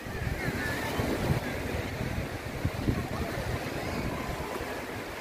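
Wind buffeting the microphone over a steady wash of surf, with faint chatter from a beach crowd.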